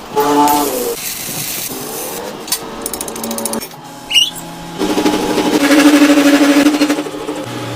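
Workshop power tools running: machine hum and rapid rattling chatter that change abruptly several times, loudest as a fast steady chatter in the second half.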